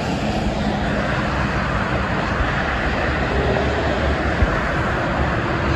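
Steady highway traffic noise: tyres and engines of trucks and cars passing on a multi-lane expressway, with one sharp click about four and a half seconds in.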